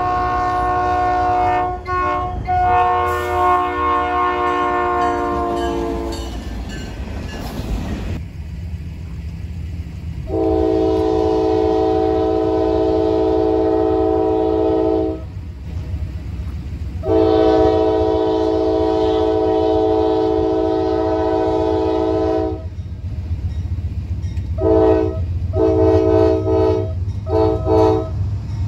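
Diesel freight locomotive air horn: a first blast whose pitch falls slightly toward its end, then two long blasts and a run of short ones, the pattern of a grade-crossing signal. A steady low rumble from the locomotive engines lies underneath.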